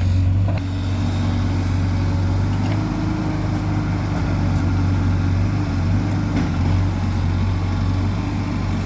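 Tractor diesel engine running steadily at an even low pitch, with a brief hiss in the first couple of seconds.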